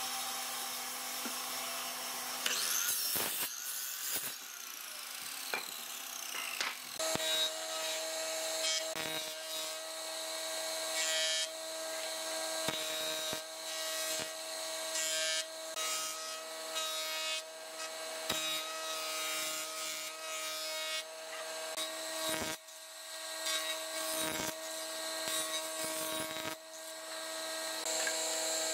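Woodworking power machinery: from about seven seconds in, a combination jointer-planer runs with a steady hum as its cutter head planes a wooden board, the cutting noise coming and going as the board is fed.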